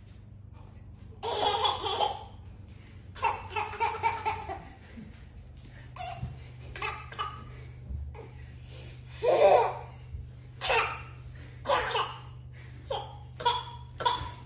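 Toddler laughing in a string of short bursts, about a dozen of them, the loudest about a second in and about nine seconds in.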